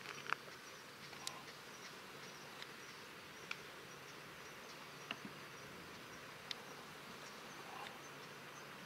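Faint outdoor background: a steady hiss with a thin high hum, broken by about six short, sharp chirps or ticks spread through the seconds.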